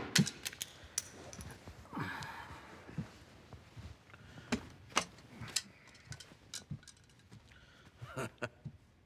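Quiet room with sparse, irregular clicks and knocks as a record is handled at a record player and a person walks away, with a brief soft rustle about two seconds in.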